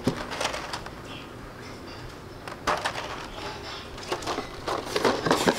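Clear plastic blister tray crinkling and clicking as it is handled and lifted out of a cardboard box, in several bursts of crackles, the busiest near the end.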